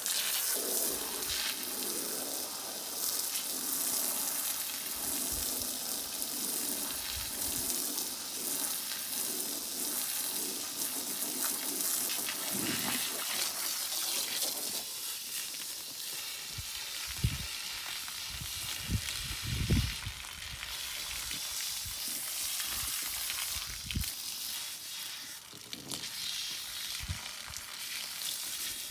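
Water jetting from a garden hose's trigger spray nozzle onto gravel and a paintbrush, a steady hiss as white paint is rinsed out of the brush. A few dull thumps come a little past halfway.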